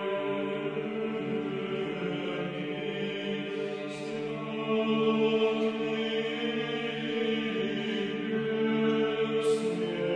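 Background music: a choir chanting slow, long-held notes.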